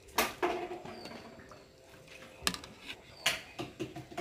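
Metal ladle clinking and scraping against a metal wok of simmering coconut milk as it is spooned over mantis shrimp. There are about five sharp clinks, spread out, some with a short ring.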